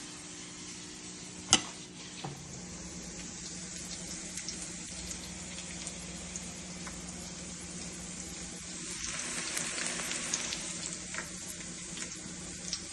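Food sizzling and crackling in a frying pan over a steady low hum, with one sharp click about a second and a half in.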